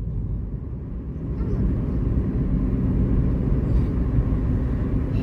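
Car driving on the road, heard from inside the cabin: a steady low rumble of engine and tyre noise that grows a little louder over the first couple of seconds as the car picks up speed.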